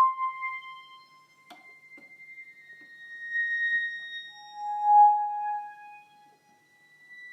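Dramatic sound-effect music: high, pure sustained tones that swell and fade one after another, with a faint tick about a second and a half in.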